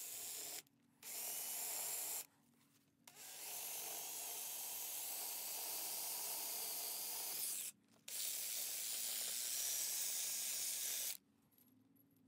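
Makita 18V cordless drill with a masonry bit boring into a stucco-finished concrete block wall. The drilling runs in spells with three short pauses and stops about eleven seconds in.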